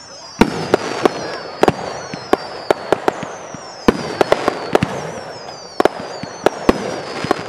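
Aerial fireworks going off in quick succession: a stream of sharp bangs, several a second at times, with whistles that slide down in pitch over them.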